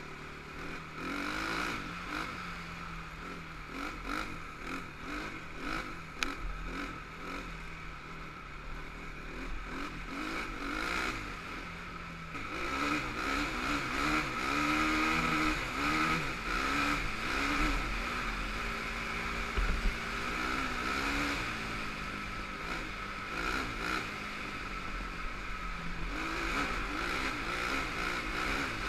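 Honda TRX450R quad's single-cylinder four-stroke engine running under way, its pitch rising and falling over and over as the throttle opens and closes, with occasional knocks.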